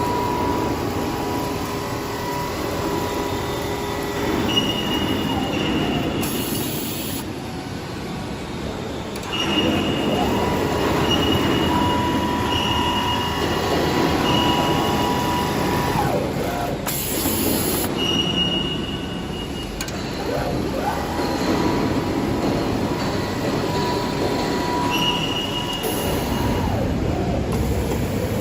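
HFJ-28A-2 computerised single-needle quilting machine running: a steady mechanical clatter, with high motor whines that cut in and out every few seconds and glide up and down in pitch as the drive changes speed.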